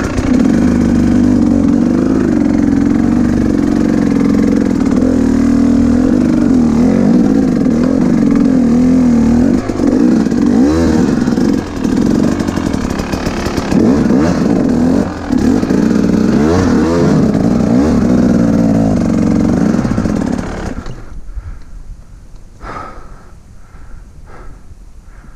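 Two-stroke dirt bike engine running under changing throttle, its pitch rising and falling, with brief drops about ten, twelve and fifteen seconds in. About twenty-one seconds in the engine cuts out, leaving the rider's heavy breathing.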